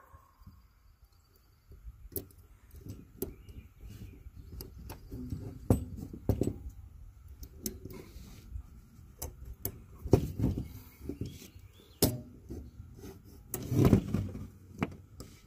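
Irregular clicks and knocks of metal parts being handled while an automatic window opener is assembled, with a few louder thumps about two-thirds of the way through and near the end.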